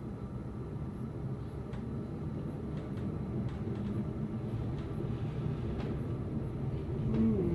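Passenger train running, heard from inside the carriage: a steady low rumble of wheels on rails that slowly grows louder as the train picks up speed, with a few faint clicks.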